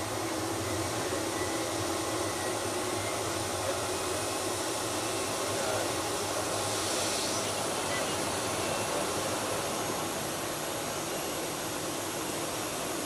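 Turbofan engines of a Boeing 737 jet running steadily, an even rushing hum with faint steady tones and a brief swell of hiss about seven seconds in.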